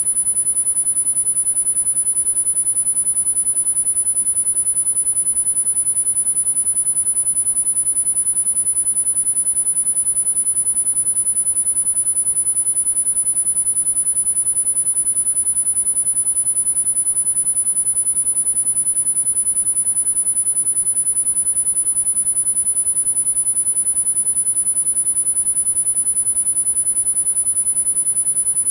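A single steady, very high-pitched pure sine tone, held unbroken without change: a tinnitus sound-therapy frequency tone.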